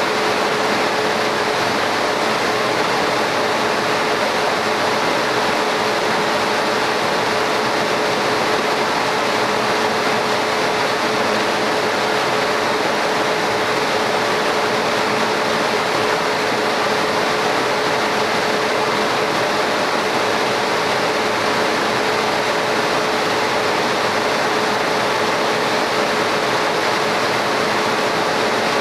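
Laser cutting machine running while it cuts into stone tile: a steady, even rushing whir of fans and air, with a constant hum throughout.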